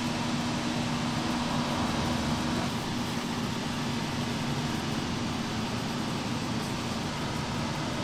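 Steady whirring hum of a ventilation fan, with a constant low drone under an even rushing noise.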